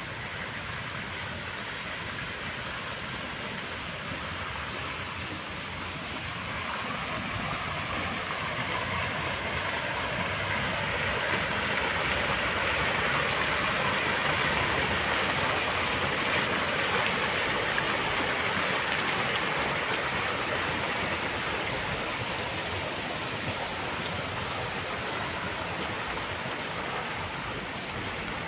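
Park fountain running: many water jets splashing down and water spilling from the basin into a lower pool, a steady rush that grows louder a few seconds in, is loudest midway and eases a little near the end.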